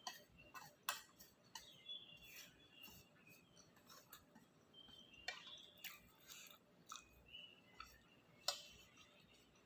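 Faint close-up eating sounds from chewing takoyaki: a run of small wet mouth clicks and smacks, with a few sharper clicks standing out.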